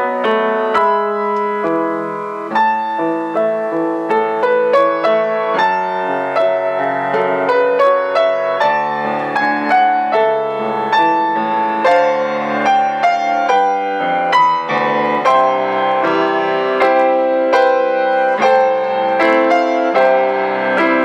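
Solo grand piano playing a continuous, flowing passage, a stream of notes struck several times a second.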